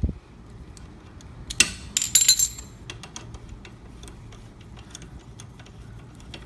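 Ratchet wrench clicking in quick, even ticks as a threadlocked scooter center-stand bolt is worked loose, with a sharp metal click and a brief jingle of clinking metal parts about two seconds in.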